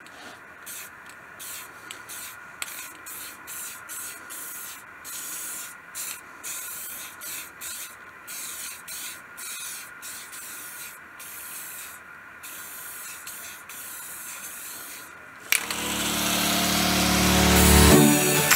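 An aerosol spray-paint can hissing in many short bursts, about one or two a second, as white paint is sprayed over a paper template on steel plate. Near the end a much louder, steady sound cuts in suddenly.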